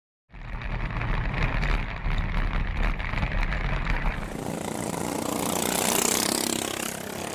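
Racing lawn mower engines running hard. The low, rough engine note gives way about four seconds in to a louder rushing sound that swells and fades, like a mower passing close by.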